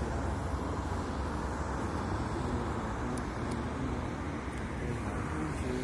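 Steady road traffic noise: the low hum and rumble of cars passing through an intersection.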